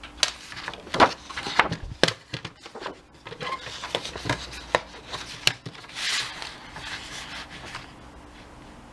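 Paper handling on a craft table: a book page rustling, with a series of sharp clicks and knocks as it is laid onto a sliding paper trimmer, and a short scrape of paper sliding about six seconds in.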